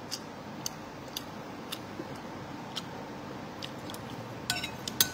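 Faint sounds of someone chewing a mouthful of food, with scattered light clicks. Near the end come a few quick clinks of a metal spoon against a ceramic plate.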